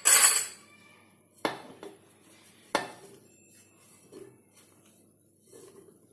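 Pieces of cut raw green mango tipped by hand from a bowl into a ceramic pickle jar, clattering against the jar and the bowl. There is a loud clatter at the start, two sharp knocks about a second and a half and nearly three seconds in, then fainter handling sounds.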